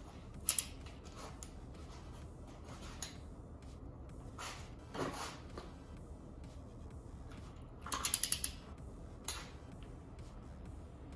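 Torque wrench ratcheting on a connecting-rod cap bolt, heard as scattered metallic clicks and a quick run of about six clicks near the end. The bolt is being tightened to 15 ft-lb and then turned a further 75 degrees.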